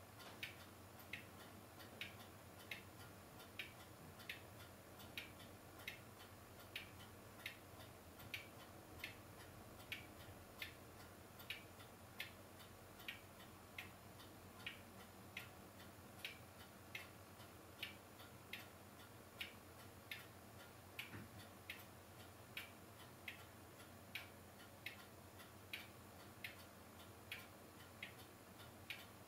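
Faint, even ticking, a little under two clicks a second, over low hiss.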